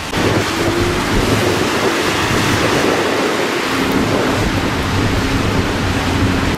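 Steady rushing noise of strong wind and rain on a wet street, with traffic passing on the wet road.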